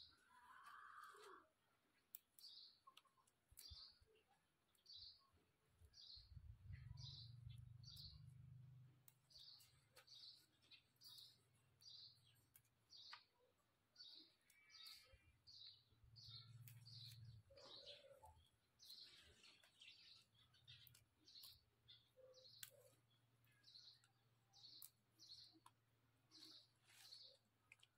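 Faint bird chirping over and over, a short high chirp about once a second, with scattered light clicks of vegetable stems being snapped and sorted by hand. A low hum swells twice, about seven and again about sixteen seconds in.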